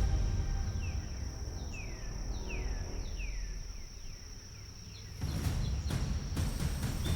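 Wild nature ambience: a bird calls a run of about eight short, falling whistled notes over a steady high thin tone and a low rumble. About five seconds in, a louder rough noise takes over.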